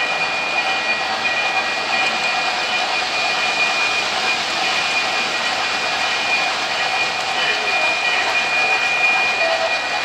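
O gauge model freight train running on three-rail track: steady whirring of the wheels and motor, with a steady high whine over it.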